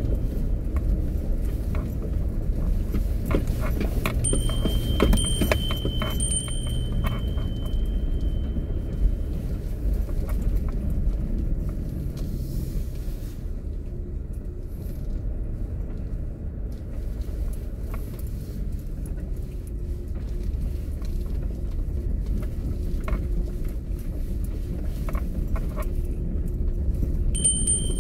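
Kia Mohave SUV driving slowly over a rough dirt forest road, heard from inside the cabin: a steady low rumble with scattered knocks and rattles from the bumpy track. A thin steady high tone sounds from about four to nine seconds in and again near the end.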